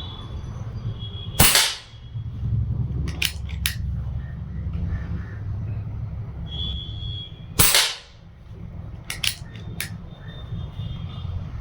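Two shots from a .177 PCP air rifle (Precihole PX100 Achilles), about six seconds apart, each a sharp crack followed a moment later by a few lighter clicks, over a steady low background rumble.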